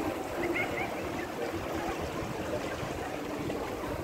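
Steady outdoor canal-side ambience: a low rumble and an even hiss like moving water, with faint voices of people in the background.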